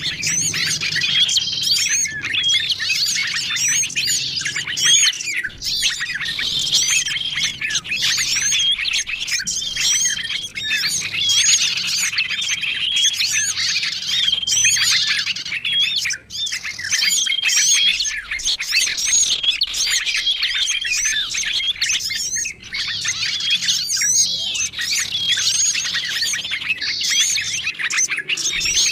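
Bird-lure recording of many small songbirds chirping and calling over one another in a dense, unbroken chatter, with a short steady whistle note repeating every second or two.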